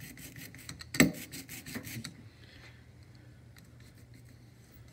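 A hand brayer being rolled through printing ink on an inking plate: a rubbing sound made of a rapid run of small clicks, with one sharp knock about a second in. The rolling stops about two seconds in, leaving only a few faint ticks.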